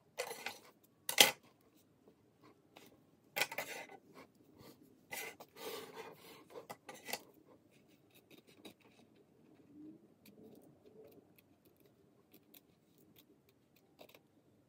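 Scissors snipping through the lace of a lace-front wig. A run of sharp snips fills the first half, the loudest about a second in, then the snips grow fainter and sparser.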